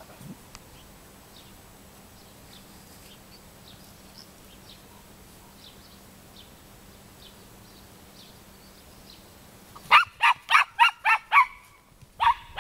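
Border terrier barking: a quick run of about seven high, sharp barks, then two more a second or so later.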